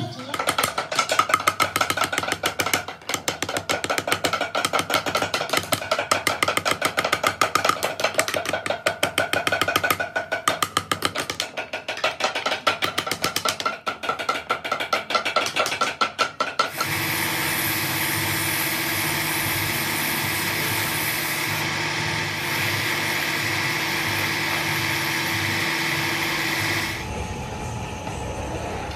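Rapid, ringing metal taps of a hammer driving a carving chisel into a wooden disc, for about the first seventeen seconds. Then a motor-driven wood lathe runs steadily with a hum and stops about two seconds before the end.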